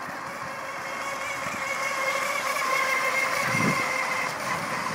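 Small electric RC catamaran boat running at speed: a steady high motor-and-propeller whine that grows louder as the boat passes closest, about three to four seconds in, then begins to fade.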